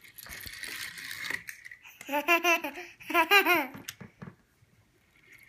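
Toddler laughing in two bursts of quick, high-pitched giggles about two and three seconds in, after a soft hissing rush in the first second or so.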